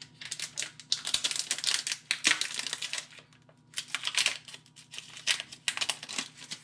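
Trading cards being handled and squared up, and the foil wrapper of a Pokémon TCG booster pack crinkling as it is picked up: two stretches of rustling and light clicking with a short pause about three seconds in.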